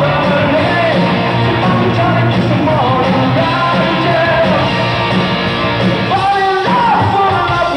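A rock band playing live and loud, with electric guitar and drums under a male lead vocal sung into the microphone.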